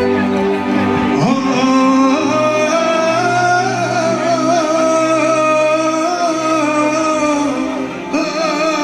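A man singing through a microphone with live accordion accompaniment, holding one long, wavering note from about two seconds in until near the end.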